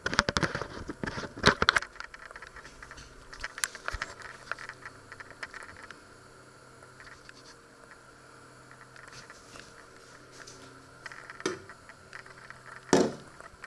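Handling noise in a kitchen: scattered knocks, clicks and scrapes, most of them in the first two seconds and again near the end, with a quieter stretch between over a faint steady hum.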